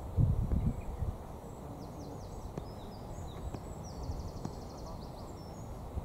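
Small birds singing, with high chirps and a fast, even trill, over a low rumble of wind on the microphone; a few loud low thumps come in the first second.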